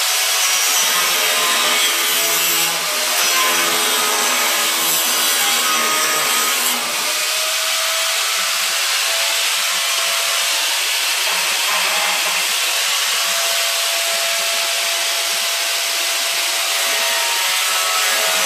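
Handheld angle grinder running continuously, cutting into the steel frame rail of a 1968–72 GM A-body car. Its high whine shifts in pitch and dips briefly a couple of times as the wheel bears into the metal.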